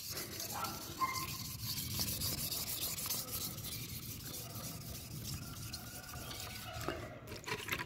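Fine 1000-grit sandpaper rubbed by hand along the metal lip of a car wheel rim in quick, even back-and-forth strokes: a steady, gritty hiss as the rim is smoothed to a fine finish.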